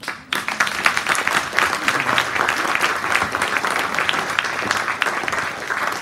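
Audience applauding: many hands clapping at once, starting a moment in and keeping up steadily.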